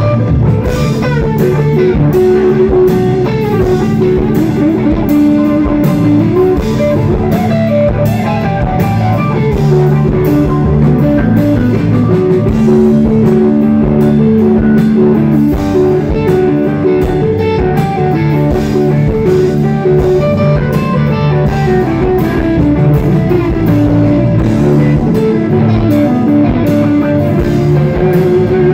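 A live rock band playing loudly: semi-hollow-body electric guitar over drums and keyboard.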